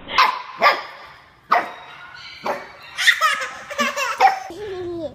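A small puppy barking in short, sharp yaps: four spaced singly over the first two and a half seconds, then a quicker run of barks near the end.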